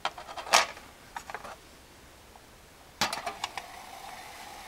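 Light metallic clicks as a hardware-cloth wire pot stand is set over a lit alcohol stove, then a quick clatter of metal knocks about three seconds in as the pot of water is set down on the stand.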